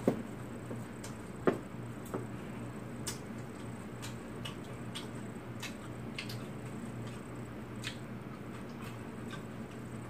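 Eating at a table: chopsticks clicking against bowls and dishes, with small chewing and squishing sounds, over a steady low hum. Two sharper knocks come in the first second and a half, then scattered light ticks.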